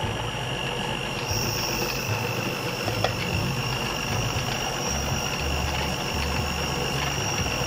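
Electric stand mixer's motor running steadily on low speed while its beaters knead flour and water into pizza dough. It gives a high whine over a low hum, and a second, higher whine joins about a second in.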